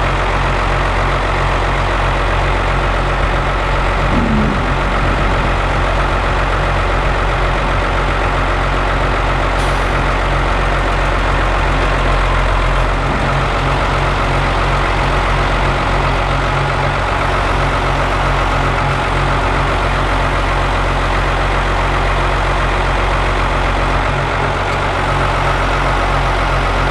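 An engine idling steadily, an even mechanical drone with a low hum that does not change.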